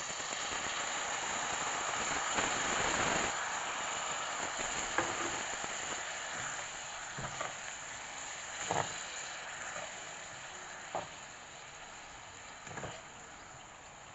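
Water poured into a hot kadhai of fried masala and raw banana, hissing and sizzling loudly at first and dying down over the following seconds as the gravy settles. A few short light knocks come in the second half.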